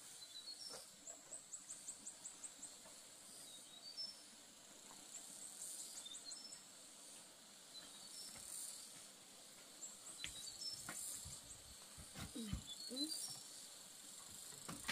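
Faint insects chirping outdoors in short trains of rapid high pulses, repeating every few seconds, with scattered short high chirps. A few brief low sounds come near the end.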